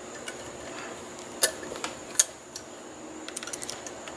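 Small metal clicks and taps of lock picking tools being handled and fitted into a Yale euro cylinder lock. There are a few sharp clicks, the loudest about two seconds in, then a quick run of light ticks near the end.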